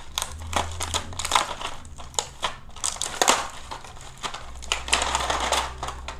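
Plastic packaging crinkling and rustling, with irregular clicks and knocks as the parts of a toy train set are handled and taken out of their box.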